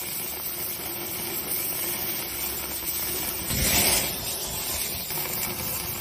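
Herb-crusted eye fillet searing on a hot grill grate over open flame, a steady sizzle and hiss that swells briefly a little past halfway.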